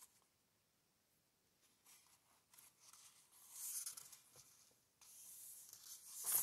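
Soft rustling of a picture book's paper page as a hand takes hold of it and turns it, with the loudest swish of the page near the end.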